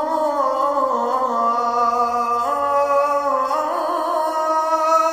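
Background vocal music: a voice singing long held notes that step up and down in pitch, with no beat or instruments.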